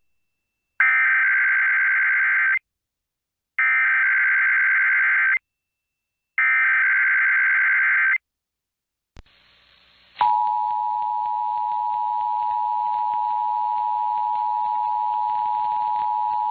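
Emergency Alert System SAME header: three bursts of digital data tones, each almost two seconds long, with short silent gaps. Then a click and faint hiss, and about ten seconds in the steady two-tone EAS attention signal (853 and 960 Hz) starts and holds.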